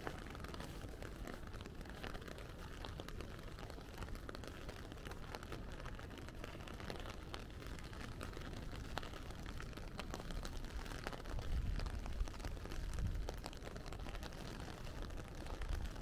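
Steady rain falling, with many small drop ticks over an even hiss. A low rumble swells about eleven seconds in and fades a couple of seconds later.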